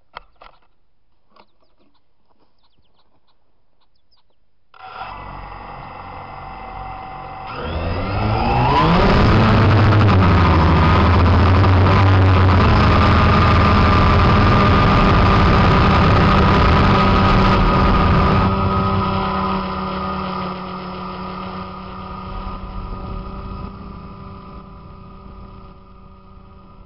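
DJI Phantom quadcopter's electric motors spinning up on the ground about five seconds in, then rising in pitch as it lifts off about three seconds later. A loud steady whine with several tones holds through the climb, then eases off and grows quieter after about eighteen seconds.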